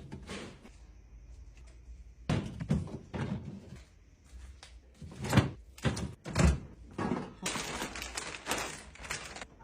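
Groceries being put away: several separate knocks and thuds as items are set down, with a door being shut among them.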